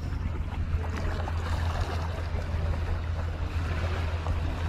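Shoreline ambience of small waves washing around the rocks and the wader's legs, under a steady low rumble of wind on the microphone.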